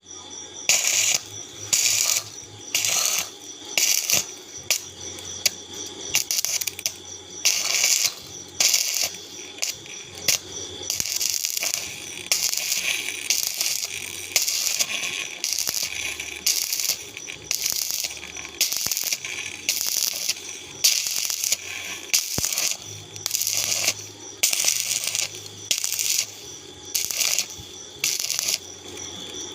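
Electric arc welding in short bursts: a crackling hiss that starts and stops again and again, each burst lasting under a second to about a second.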